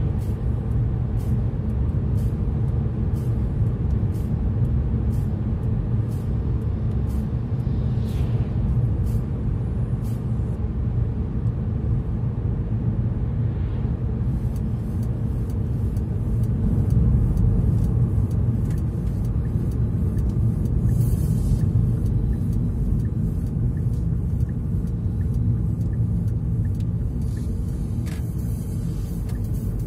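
A car driving at road speed: a steady, dense low rumble of engine and tyre noise, with faint light clicks through it.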